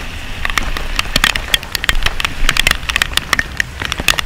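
Rain falling, with many irregular, sharp drop taps close to the microphone.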